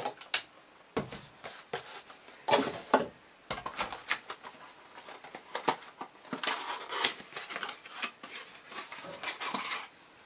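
Small cardboard box being opened and its contents unpacked by hand: irregular rustling and crinkling of packaging with scattered clicks and taps.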